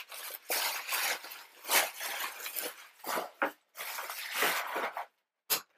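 Rustling and handling of product packaging, in irregular crinkly stretches with a few sharper knocks.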